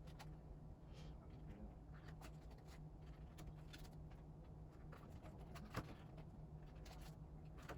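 Faint handling sounds of a K-pop album and its photocards being unpacked: scattered light clicks and rustles, with one sharper click near the end, over a low steady hum.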